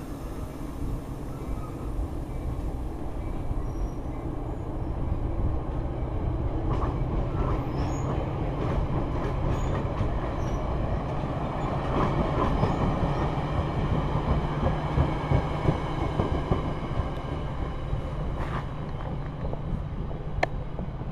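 Metra bilevel commuter coaches rolling past close by: a steady rumble of steel wheels on the rails that swells a little through the middle. A few sharp wheel clicks come near the end as the cab car at the tail goes by.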